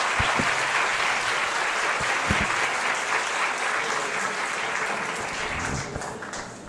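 Audience applauding, fading out near the end, with a few dull thumps in the first few seconds.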